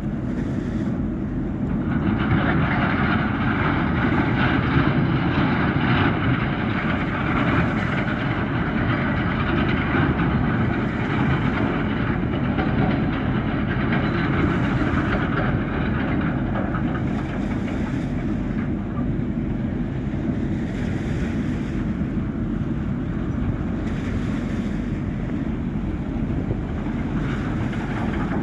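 Large car ferry's engines running steadily, growing louder about two seconds in and holding a deep rumble with a hissing upper layer.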